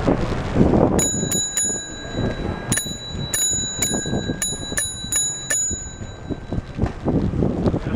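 Bicycle bell rung again and again, about a dozen quick dings in short runs over a few seconds, each ringing on briefly, to warn pedestrians walking in the cyclist's path.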